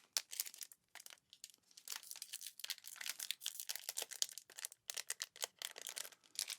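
Switch puller picking and scraping at dense packing foam to pry out sample keyboard switches. It makes a quiet, rapid run of small irregular crinkling scratches and ticks.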